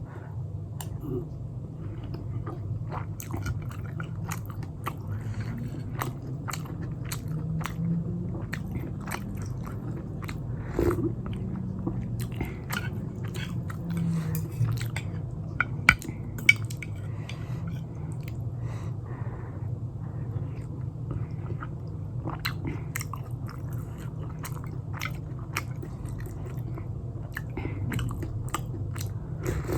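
Close-miked chewing and biting of pan-fried momos in jhol, with many small wet clicks and crunches throughout, over a steady low hum.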